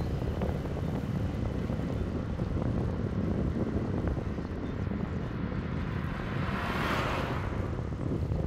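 Steady low wind rumble on the microphone of a moving e-bike, with a passing vehicle's rush swelling and fading about seven seconds in.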